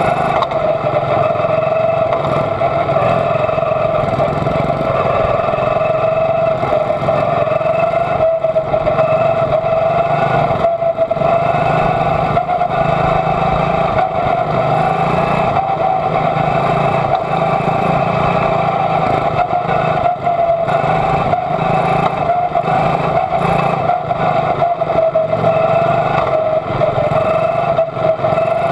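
Quarter midget's Honda single-cylinder four-stroke engine running flat out at steady high revs, its pitch barely changing through the laps, with the engines of the cars close ahead mixed in.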